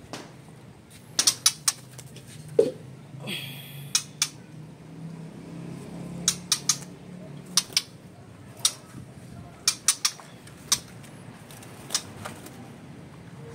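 Irregular sharp clicks and taps in a wire birdcage holding a white-rumped shama, about fifteen in all, with a brief rustle about three seconds in.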